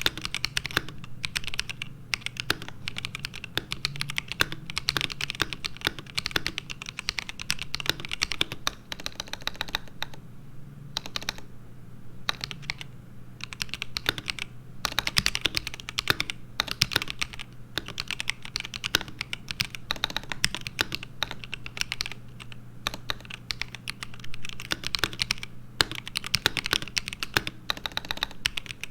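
Typing on an ASUS ROG Azoth mechanical keyboard with pre-lubed ROG NX Linear Red switches, stock and unmodded: fast runs of keystrokes broken by a few short pauses, over a steady low hum.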